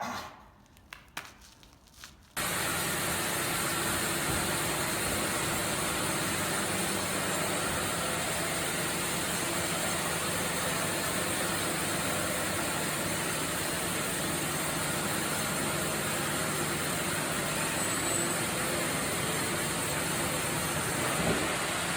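A few sharp knocks against near-quiet, then a little over two seconds in, sawmill machinery starts up abruptly and runs as a loud, steady, unchanging noise.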